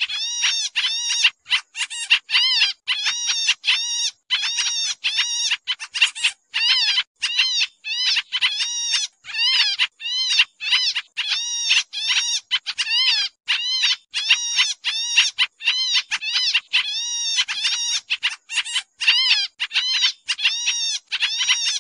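Pied trillers (kapasan kemiri) calling in a noisy lure recording of the kind used to draw the birds in. Short notes follow each other about twice a second without a break, each rising then falling in pitch.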